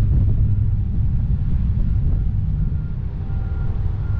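Car engine running with tyre and road noise while driving, a steady low rumble that eases slightly near the end.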